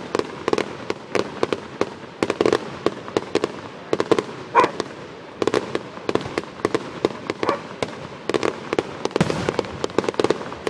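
Fireworks display firing in rapid volleys: dense strings of sharp pops and crackles, coming in clusters every second or so, with the loudest bang a little under halfway through.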